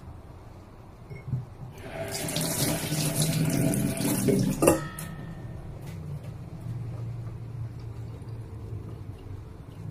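Kitchen tap running for about three seconds, starting about two seconds in, then shut off with a click.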